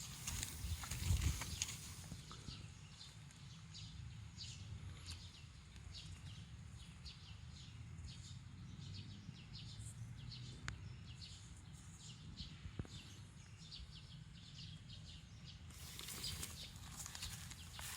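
Footsteps and rustling on the ground: light, irregular crunching steps over a low steady rumble, louder about a second in and again near the end.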